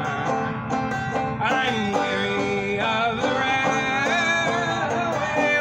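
Banjo strummed in a steady rhythm, accompanying a man singing a folk song.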